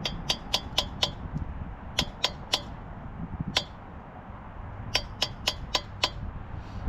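Light hammer strikes ringing on steel, in quick runs of three to five taps about four a second, with pauses between the runs.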